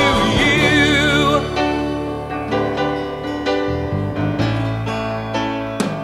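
Early-1970s pop recording in a passage without lyrics. A held note with vibrato early on gives way to sustained keyboard chords over a steady bass, and drum hits come back in near the end.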